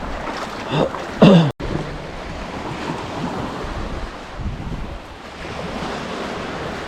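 Wind buffeting the microphone over the wash of waves on the shore, a steady rushing noise. A couple of brief voice sounds come in the first second or so, then a sudden cut.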